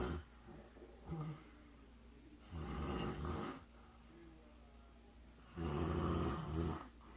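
A woman snoring in another room: snores of about a second each, coming about every three seconds, two full ones after the tail of another at the start, with a short weak one in between.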